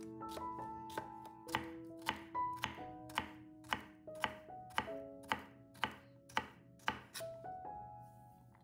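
Knife chopping food on a cutting board in a steady rhythm of about two strokes a second, stopping shortly before the end, over soft background music with held notes.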